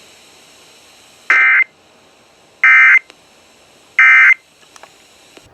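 EAS end-of-message signal: three short, loud bursts of raspy digital data tone (the SAME 'NNNN' code), evenly spaced a little over a second apart, marking the end of the emergency alert.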